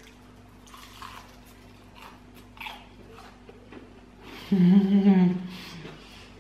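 Soft eating sounds from a person chewing fried chicken, then about four and a half seconds in a loud, closed-mouth hummed "mmm" lasting about a second.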